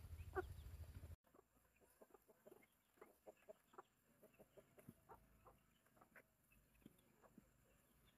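Chickens clucking, loudest in the first second; after a sudden cut the clucks go on fainter and scattered.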